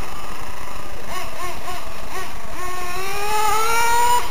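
Small nitro engine of a radio-controlled monster truck: several quick throttle blips, then one long rise in pitch as it accelerates, cutting off suddenly near the end.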